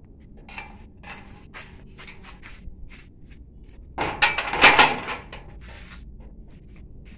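Steel-bar gate being handled: light knocks and clicks of the metal, then a loud clanking rattle about four seconds in, lasting about a second.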